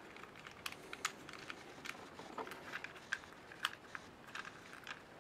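Light, irregular plastic clicks and scrapes as a clip-on mounting bracket is worked off a small TCL SVC200 action camera.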